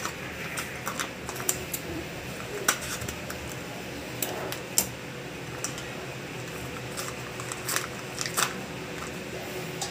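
A cardboard box of custard powder and its inner paper packet being handled and torn open: scattered sharp crinkles and clicks over a steady low hum.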